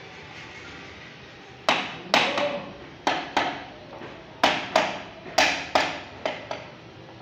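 Sharp metal-on-metal taps, about a dozen irregular strikes with a short ring after each, starting under two seconds in, as a hand tool knocks against metal parts of a partly stripped Massey tractor engine.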